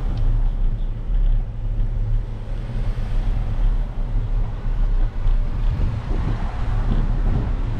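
Steady, uneven low rumble from riding a bicycle along a paved street with a GoPro: road noise from the tyres and air rushing over the camera microphone.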